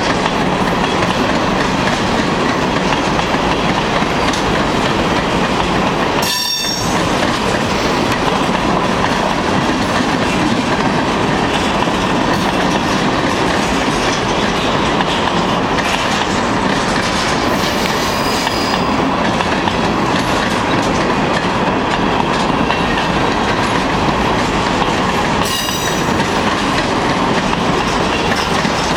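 Freight train cars rolling past close by: a steady, loud rumble and clatter of steel wheels on the rails, with two brief dips at about 6 and 25 seconds in.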